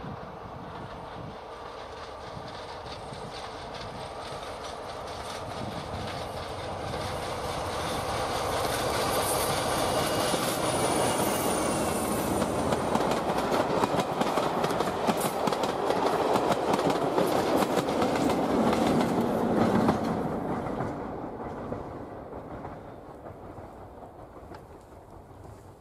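Diesel-hauled passenger train passing close by. It grows steadily louder as it approaches, then the coaches go by with wheels clattering over the rail joints, and the sound fades away after about twenty seconds as the train moves off.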